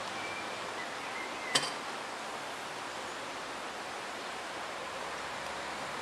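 Ivatt Class 2 tank engine No. 41241 standing in steam with a steady hiss. About a second and a half in comes one sharp metallic clank from someone climbing down the steps on the front of the engine.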